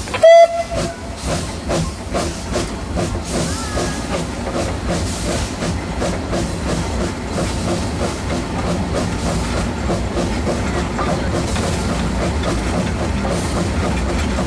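Steam locomotive A10 No. 6, built by Neilson and Company in 1865, sounds its whistle in one short, very loud blast. It then runs on with a steady rhythmic beat of exhaust and wheels on the rails, over a hiss of steam.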